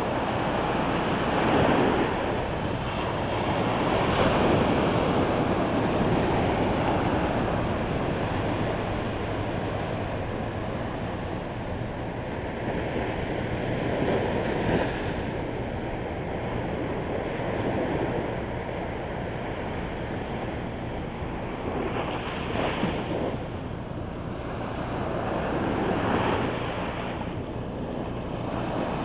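Small surf breaking and washing up a sandy beach: a steady hiss that swells and eases every few seconds, with some wind buffeting the microphone.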